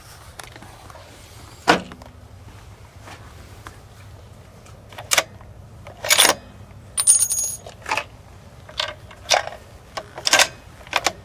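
Metallic clicks, knocks and clinks, about ten in all, as a bolt-action rifle is worked and reloaded between shots. One clink about seven seconds in rings out high and metallic.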